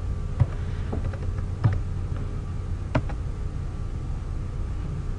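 A few separate keystrokes on a computer keyboard, sharp single taps spaced about half a second to a second apart, over a steady low hum.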